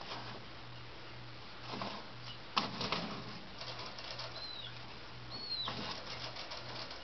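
Pet eastern screech owl in a wire cage, with rustling and clicking as it shifts, and a sharp click about two and a half seconds in. Two short, high, falling chirps come a little after the middle, over a steady low hum.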